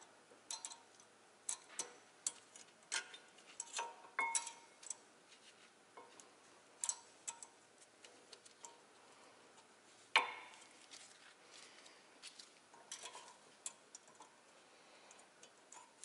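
Light metallic clicks and clinks as Wagner ThermoQuiet ceramic brake pads are seated into the new spring clips of a caliper mounting bracket, with one sharper clack about ten seconds in.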